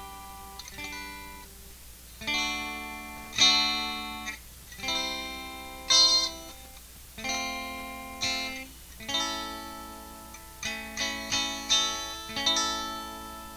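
Electric ukulele strumming chords clean through a Sound City Master Lead 50 tube guitar head, with no distortion. The chords come about one a second, each ringing out and fading, with a few quicker strums near the end.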